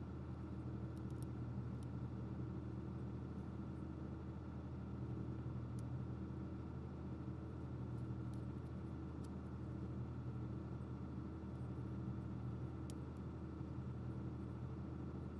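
Steady low hum of room or equipment noise, with a few faint light ticks.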